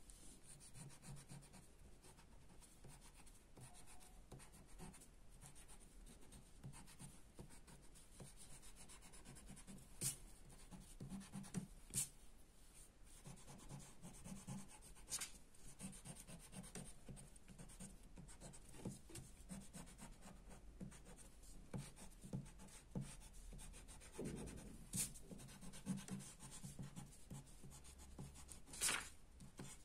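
Faint rubbing of a white eraser scrubbing back and forth over paper, removing pencil guide lines, with a few sharp clicks scattered through.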